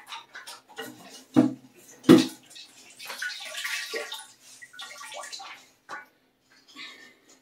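Leftover water sloshing and dripping as it is mopped by hand out of a drained toilet tank, with many small splashes and clicks. Two loud knocks come about one and a half and two seconds in.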